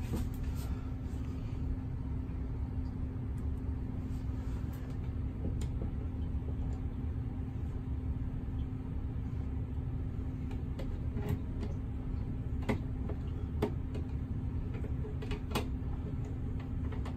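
A screwdriver driving the screws of an outlet cover plate: scattered small clicks and scrapes of the tip on the screws and plate. Under them runs a steady low hum.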